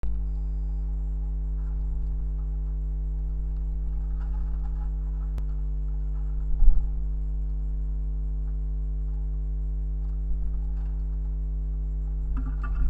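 Steady electrical hum with several level pitched lines, over which come a few soft thumps and wing flutters from Eurasian collared doves scuffling on a wooden feeding tray, the loudest about halfway through and another cluster near the end.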